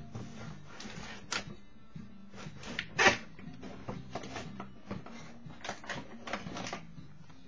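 Quiet background music with a low melody that steps from note to note, under scattered short clicks and one louder rustle about three seconds in.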